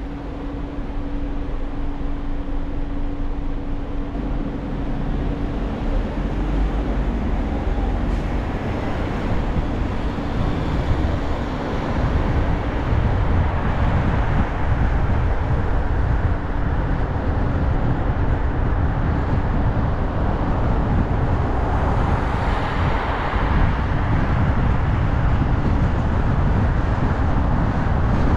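Car driving on a city street: steady road and engine noise with some wind. A low steady hum in the first few seconds gives way to louder, deeper road noise from about six seconds in, with a brief swell of noise near the end.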